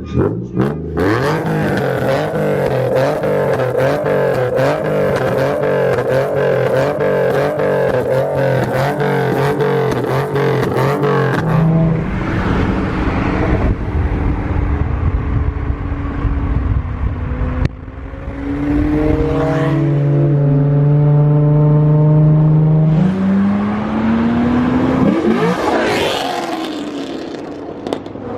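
Supercar engine and exhaust running hard: a steady engine note with a rapid string of crackles for the first ten seconds or so, then revs rising around twenty seconds in, and a falling pitch near the end.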